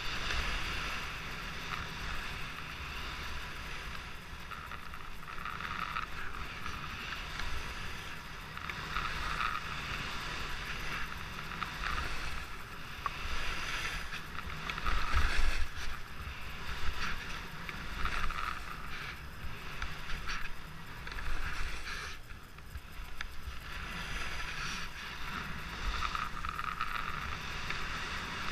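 Skis carving turns on firm groomed snow: a scraping hiss that swells with each turn every second or two. Wind buffets the camera microphone underneath, gusting hardest about halfway through.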